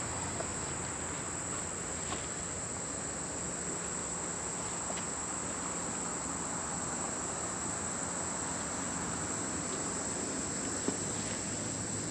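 A steady, high-pitched chorus of insects droning without a break, with a few faint clicks now and then.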